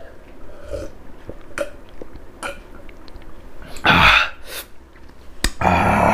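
A man burps loudly twice after drinking and eating, about four seconds in and again near six seconds. Soft mouth clicks and chewing noises come between the burps.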